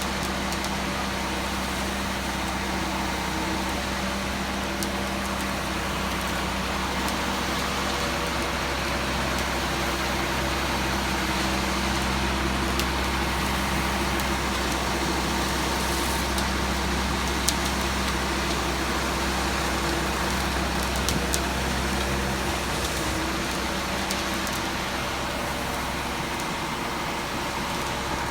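Concrete mixer truck running steadily while water is added to the drum: a constant low engine drone under an even rushing noise. A held low tone in the drone drops away about twenty-two seconds in.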